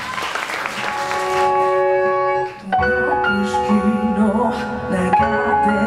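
Live rock band playing the instrumental intro of a song: held chords at first, then after a brief drop in level the full band, bass included, comes in just under three seconds in.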